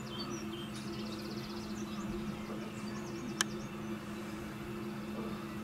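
Garden birds chirping and singing, with a rapid trill just under a second in, over a steady low hum. A single sharp click sounds about three and a half seconds in.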